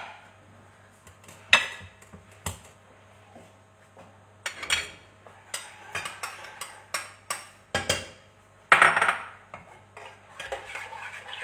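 Kitchen clatter: cookware and utensils knocking and clinking on a counter and stove, as separate sharp knocks spread irregularly, with a longer clatter about nine seconds in.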